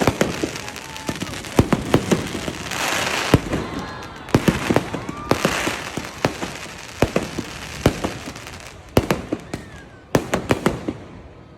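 Fireworks display: an uneven string of sharp bangs, with two spells of dense crackling about three and five-and-a-half seconds in.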